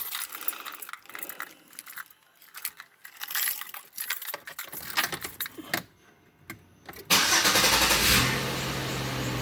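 Keys rattling and clicking in the ignition for several seconds, then about seven seconds in the car's engine cranks and catches, settling into a steady idle.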